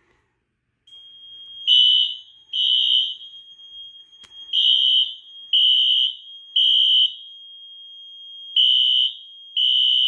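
Synced Wheelock fire alarm horns sounding in the temporal-three pattern after a pull station is pulled: loud, high-pitched blasts in groups of three, about a second apart, then a pause. A thinner steady high tone carries on underneath from about a second in.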